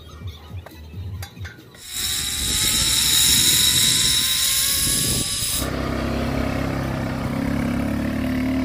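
A zipline trolley runs along its steel cable, starting about two seconds in: a loud hiss with faint rising whines that lasts about three and a half seconds. It is followed by a quad bike's small engine running with a steady low hum.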